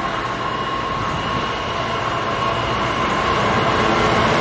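British Rail Class 66 diesel-electric locomotive, with its two-stroke V12 engine, hauling a long container freight train and growing steadily louder as it approaches, a steady high tone riding over the engine and wheel noise.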